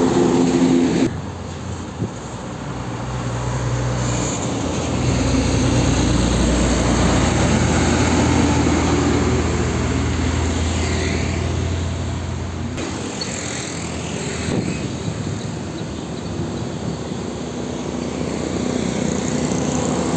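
Heavy diesel trucks driving past one after another: engines running and tyres on the road, with a deep engine drone loudest in the middle. The sound changes abruptly about a second in and again about two-thirds through.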